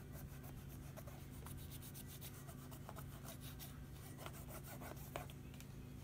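Faint rubbing and scattered light ticks of fingertips pressing and smoothing tape over the display cable connector on the back of a laptop LCD panel, over a steady low hum.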